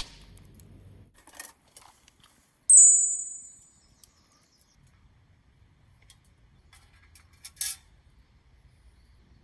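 Small metal objects clinking, like camp cookware or utensils being handled. A bit under three seconds in, one sharp metallic clink rings out high and fades over about a second. Scattered light clicks come before and after it, with another clink near the end.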